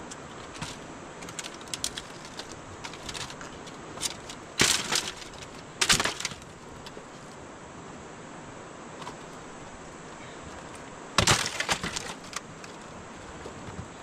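Three loud bursts of sharp cracking and snapping, about five, six and eleven seconds in, with lighter scattered clicks between them, over a steady hiss.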